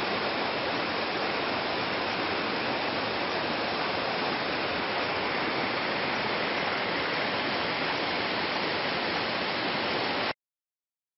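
Fast mountain creek rushing over rocks and through shallow white-water riffles: a steady, even roar of running water that cuts off abruptly near the end.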